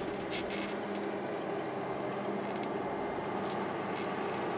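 A diesel train running steadily: an even engine hum with a few faint clicks over it.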